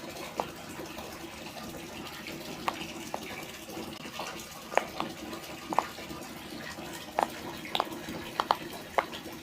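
Silicone pop-it fidget toy's bubbles being pressed in, about a dozen small, irregular pops over a faint steady hum.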